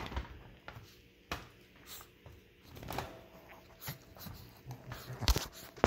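Rustling and handling noises as a young puppy is lifted out of a fleece dog bed, with scattered soft knocks and one sharper knock about five seconds in.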